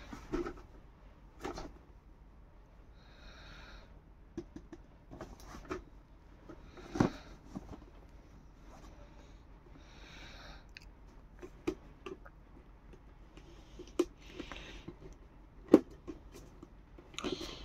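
Handling of a boxed Funko Pop vinyl figure in a hard clear plastic protector case: scattered sharp clicks and knocks of the plastic as it is picked up and turned over, the loudest about seven seconds in and near the end. A few short soft hissing sounds fall between the knocks.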